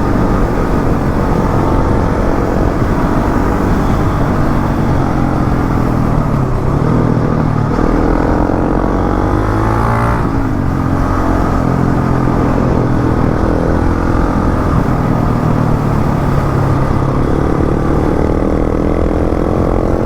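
KTM motorcycle engine running hard, its pitch rising and falling as it revs up and changes gear, with a clear shift in pitch about halfway through.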